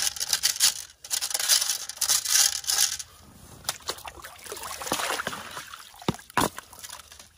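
Pay dirt and gravel rubbed by hand against the wire mesh of a 5 mm gold-panning classifier sitting in a tub of water: a dense scraping for about three seconds. It then gives way to quieter sloshing and trickling water as the sieve is lifted out.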